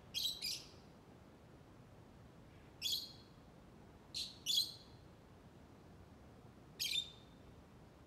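Lovebird giving six short, high-pitched chirps, some in quick pairs, spaced a couple of seconds apart.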